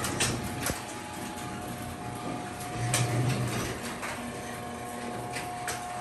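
Craftsman 139.53916D half-horsepower belt-drive garage door opener running, lowering the sectional door, with a steady motor hum and a few short clicks.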